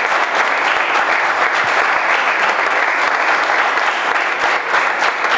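A small crowd of people applauding, dense steady hand-clapping with no let-up.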